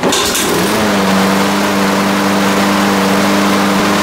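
Walk-behind lawn mower's small four-stroke engine starting and spinning up over about the first second, then running steadily at speed, being warmed up for an oil change.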